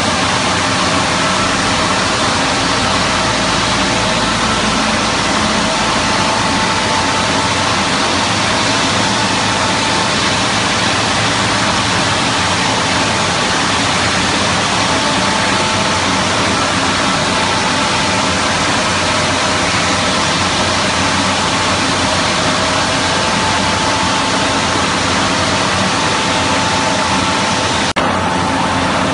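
Tile cutting line machinery running with a loud, steady noise, and a faint whine coming and going every few seconds.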